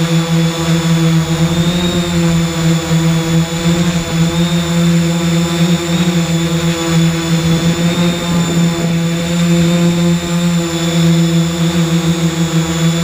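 3DR X8 octocopter's electric motors and propellers buzzing steadily in hover, heard close up from the drone's own camera: a loud, even hum with a whine above it.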